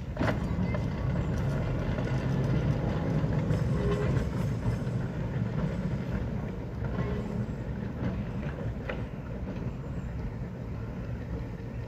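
Vintage electric tramcar running along the track as it pulls away, a low rumble from its motors and its wheels on the rails. The rumble is loudest in the first few seconds and eases as it draws off, with a few sharp clicks from the wheels.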